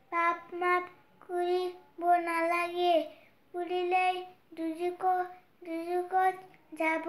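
A boy's voice chanting a Bengali waz (Islamic sermon) in a sing-song style: short phrases on held, steady notes, with brief pauses between them.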